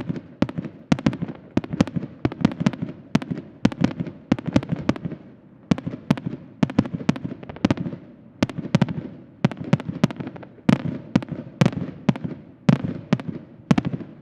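Aerial fireworks bursting in a rapid, uneven string of sharp bangs, about three a second, each trailed by a low rumbling echo.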